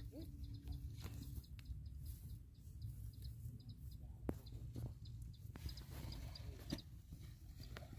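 Outdoor ambience: a steady low wind rumble on the microphone, with faint small-bird chirps repeating now and then and a few sharp clicks from handling.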